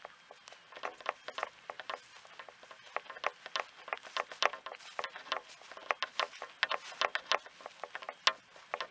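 Irregular sharp clicks and taps, several a second and louder from about three seconds in: handling noise and rattle of carried gear from walking across grass with the camera in hand.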